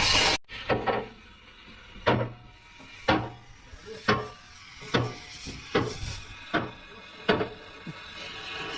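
Hammer strikes, about ten of them at roughly one a second, each a short sharp knock.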